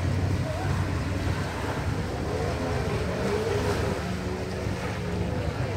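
Seaside ambience: wind buffeting the microphone over surf, with a steady low rumble and faint, distant voices.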